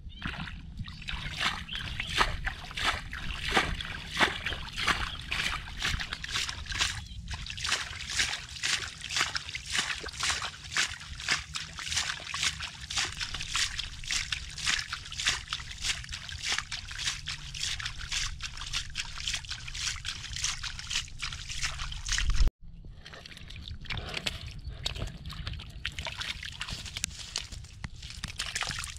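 Hands sloshing and scooping through a shallow muddy puddle, feeling in the mud for catfish: quick repeated splashes, a few each second, over a steady low rumble. The splashing breaks off about two-thirds of the way through and then goes on more softly.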